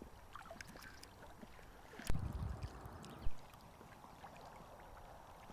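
Faint water lapping around a small boat, with a sharp knock about two seconds in and a low bump about a second later.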